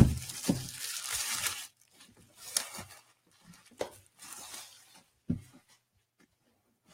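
Cardboard box being handled and turned over: sharp knock at the start, then scraping and rustling of cardboard in several stretches, with a few soft thumps, fading to quiet near the end.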